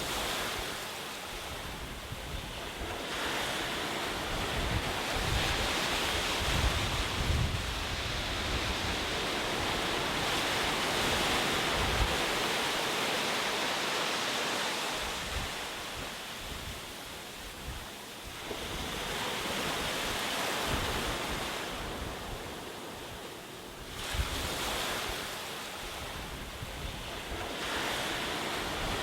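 Ocean waves breaking and washing up a shore. The surf swells and recedes in slow surges several seconds apart, with a louder wave about a second in, another about six seconds before the end, and a softer lull in between.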